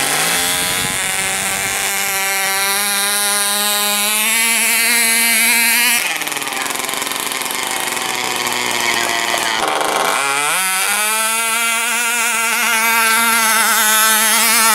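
Electric motor of a radio-controlled micro pulling model tractor whining as it drags a weight-transfer sled, rising in pitch as it spins up and then holding steady. The whine breaks off about six seconds in, and another run's whine rises again near the ten-second mark.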